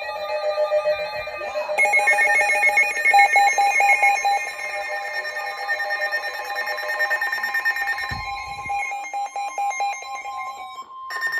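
Weather alert radios sounding their alarms at once: steady alert tones at several pitches overlapping, with rapid beeping, the tones starting one after another in the first two seconds. A brief low thump comes about eight seconds in, and another set of tones starts near the end.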